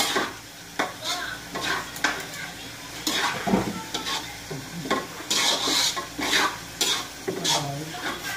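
A cooking utensil scraping and knocking against a wok in repeated, irregular strokes as food is stirred, over a light sizzle of frying.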